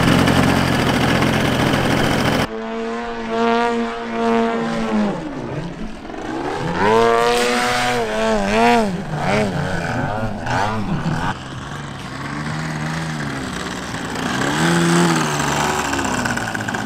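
Large radio-controlled aerobatic model plane's propeller engine: running steadily close by for the first couple of seconds, then, after a cut, heard in flight with its note rising and falling again and again as it throttles through manoeuvres and passes by.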